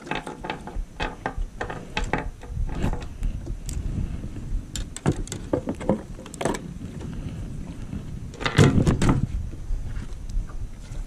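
Irregular clicks and knocks of tackle and handling on a small boat as a small fish is played in on an ultralight jigging rod, over a low rumble of wind and water. A louder cluster of knocks comes about three-quarters of the way through.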